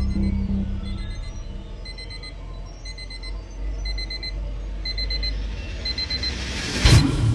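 Digital alarm clock beeping in quick groups of about four high beeps, a group about once a second, over a low rumble that fades. Near the end a loud, short whoosh swells up and cuts off.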